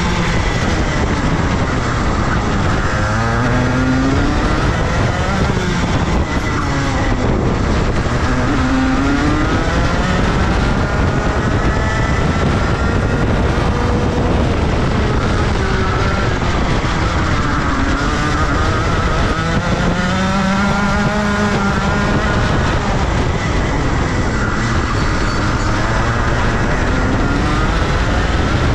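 Rotax Max 125 cc single-cylinder two-stroke kart engine at full race revs, its pitch climbing and dropping again and again as the kart accelerates and backs off around the track.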